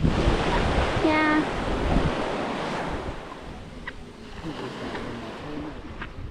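Sea waves breaking and washing up the beach. The wash is loudest for the first few seconds, then fades.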